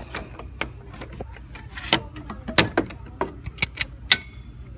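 Hand work on the radiator and condenser mounting: a scattered series of sharp metallic clicks and knocks as parts and tools are handled, about eight in all, the loudest around the middle, over a low steady hum.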